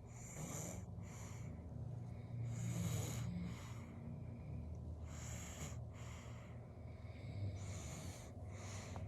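Seven-month-old baby snoring in sleep: breathy snores that come and go about every two to three seconds.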